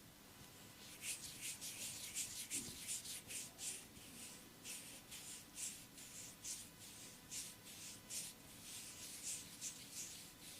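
Hands rubbing in a massage, a quick steady rhythm of about three strokes a second, starting about a second in.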